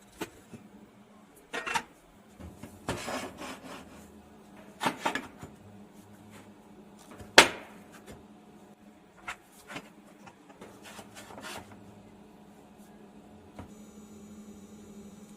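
Steel workpieces being handled and repositioned: scattered knocks and scrapes with one sharp clank about seven and a half seconds in, over a faint steady hum.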